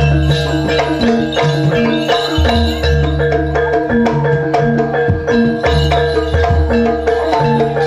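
Live Javanese gamelan music for a jaranan dance: ringing metallophone tones over a low drum pattern that repeats about every second and a half.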